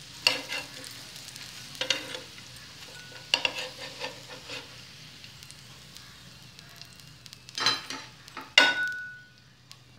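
A metal spatula scrapes across a tawa griddle in about half a dozen short strokes as fried green-chickpea fritters are lifted off. Oil sizzles faintly underneath. The loudest scrape comes near the end and leaves a brief ring of metal.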